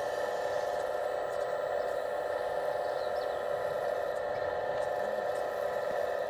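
Hydraulic pump of a radio-controlled Case CX85RR model excavator running with a steady whine while the boom and bucket dig.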